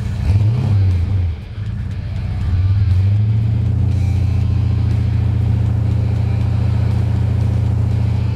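6.5-litre Chevrolet V8 diesel in a Nissan GU Patrol revving twice, its pitch rising and falling, then running steadily at a raised speed from about three seconds in.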